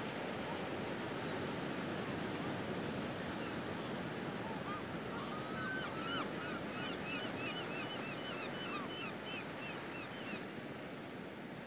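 Steady surf-like rushing noise, with a small bird chirping rapidly in short hooked notes from about four to ten seconds in; the whole fades slowly toward the end.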